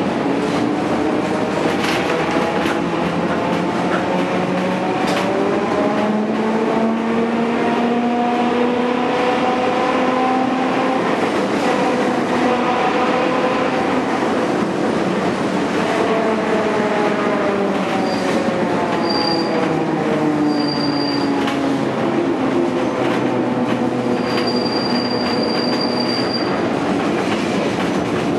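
Vintage electric tram running, heard from inside the driver's cab. The traction motor whines in several tones that rise in pitch over the first half and fall in the second, over a steady rumble of wheels on rail with occasional knocks. Near the end the wheels squeal on the rails in high-pitched squeals, three times, the last lasting about two seconds.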